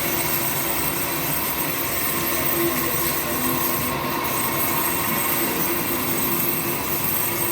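A machine running steadily, a constant hiss with a steady whine in it.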